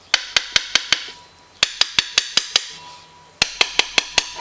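A small hammer tapping the transmission back cover of a Honda Foreman 500 engine down onto the crankcase. It comes in three bursts of five or six quick taps, about five a second, driving the cover over its dowels and shafts until it bottoms out.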